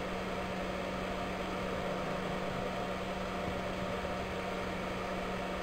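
Steady machine hum: an even hiss with one constant low tone, from running electrical equipment.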